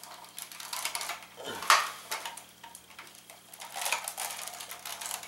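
Hard plastic action figures being handled and moved, a scatter of light clicks and clacks with a louder knock about a second and a half in.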